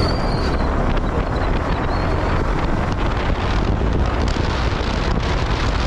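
Wind rushing over the microphone of a moving motorcycle, with the bike's engine and road noise as a steady rumble beneath.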